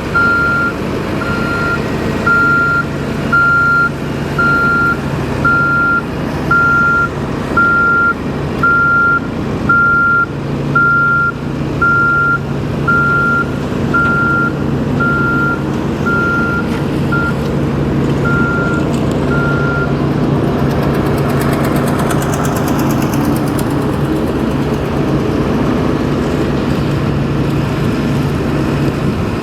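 Heavy vehicle's reversing alarm beeping about once a second over a steadily running diesel engine; the beeping stops about two-thirds of the way through while the engine keeps running.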